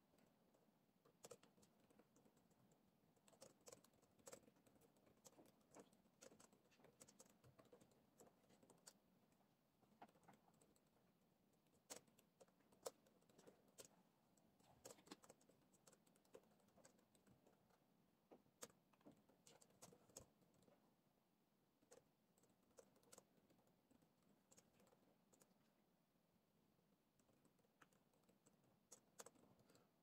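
Faint typing on a laptop keyboard: irregular runs of soft key clicks. The clicks thin out for several seconds near the end, then come back in a short run.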